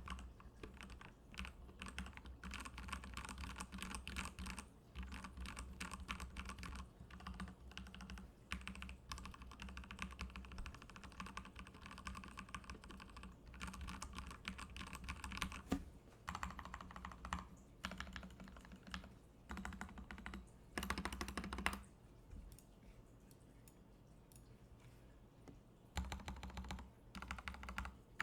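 Custom mechanical keyboard with lubed Gateron Black linear switches, tape mod and foam being typed on in runs of keystrokes separated by short pauses, with a longer pause about three-quarters of the way through. The tape mod, foam and lube give the keystrokes a dampened sound.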